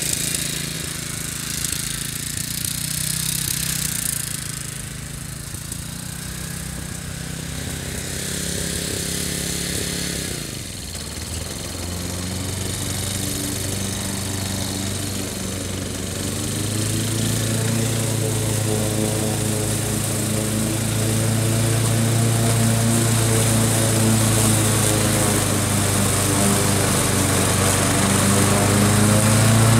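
Wolf Garten ride-on mower running and cutting tall, wet grass. It fades as the mower moves away, its engine note sags briefly about ten seconds in, then it grows louder as the mower comes back toward the microphone.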